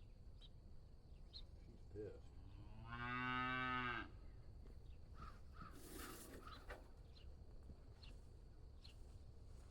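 A cow mooing once, a steady low call lasting about a second, about three seconds in. It is preceded by a short faint lowing sound.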